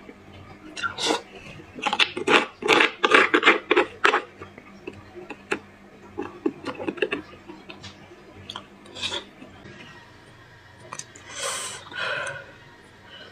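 Metal spoon scraping and scooping marrow from inside a large roasted beef bone, in bursts of quick scrapes and clicks, with a short noisy burst near the end.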